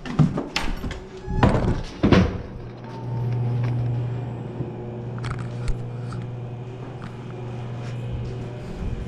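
A few sharp thumps and knocks, like a door swinging and footsteps, in the first two seconds, then a steady low hum that sets in about three seconds in and carries on.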